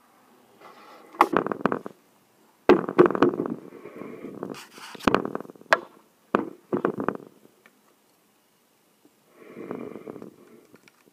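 Handling noise as the stitch cam is worked loose on top of a Singer 401 sewing machine and the camera is shifted: several short bursts of clicks and knocks with rustling between them.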